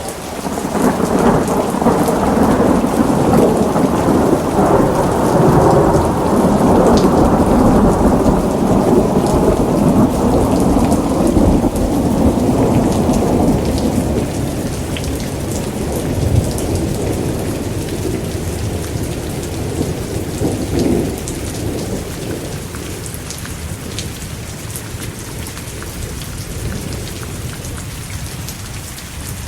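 Thunderstorm: a long roll of thunder swells up about a second in, rumbles for some fifteen seconds and slowly dies away, over steady heavy rain with drops pattering on a surface.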